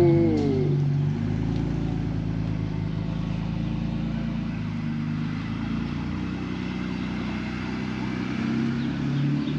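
BMW E46 325i's 2.5-litre straight-six engine running steadily with a low, even hum, rising a little near the end.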